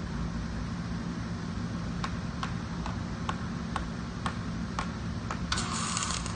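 A series of sharp ticks, about two a second, then an electric welding arc strikes about five and a half seconds in and crackles with a steady hiss.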